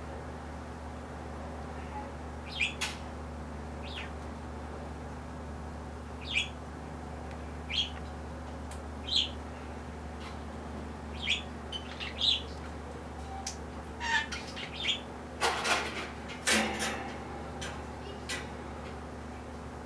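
A bird chirping in short, high calls a second or two apart over a steady low hum, with a brief cluster of louder noisy bursts about three quarters of the way through.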